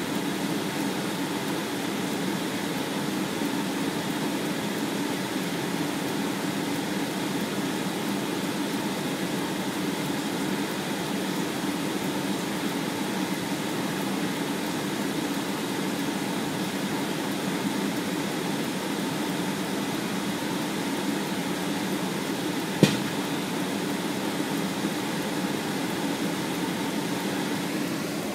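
Steady hum of an idling engine. One sharp click a little over three-quarters of the way through.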